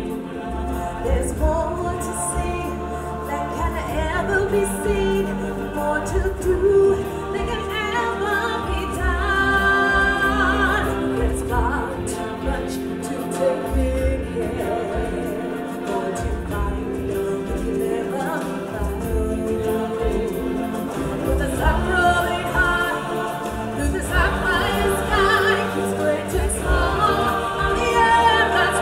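Stage-show music: a choir of singers performing a song with instrumental accompaniment over a low beat.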